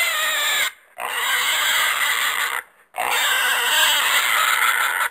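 Horse giving three loud, rough, high-pitched calls in a row, each one to two seconds long, with short pauses between them.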